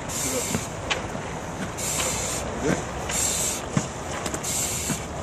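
Firefighter's SCBA regulator hissing in short bursts with each breath, about one every second and a half, over a steady low rumble from an idling fire engine.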